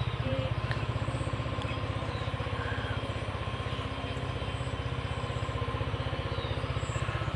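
An engine running steadily at idle, a low even throb of about ten beats a second.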